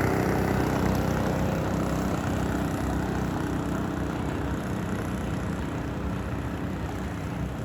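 Longtail boat engine running steadily, its pole-mounted engine droning at an even speed and slowly fading.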